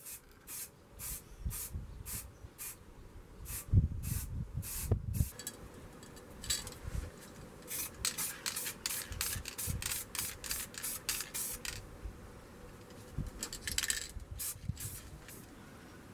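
Short, repeated hissing strokes over the surface of a cast-iron kettlebell during its restoration, a couple a second at first, then denser and faster in the middle, with a few low thumps about four to five seconds in.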